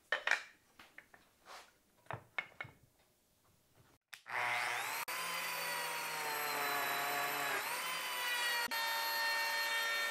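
A few light knocks as the spacer block and tool are set against the workpiece. Then, about four seconds in, a Lamello Zeta P2 slot cutter's motor spins up with a rising whine and runs steadily, plunge-cutting P-System connector slots in the wood, with a brief sag in pitch partway through.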